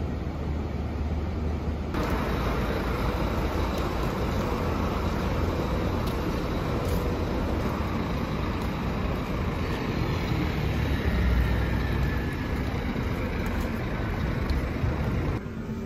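Bus engines running at a terminal stop, with the steady low rumble of idling coaches and road traffic around them.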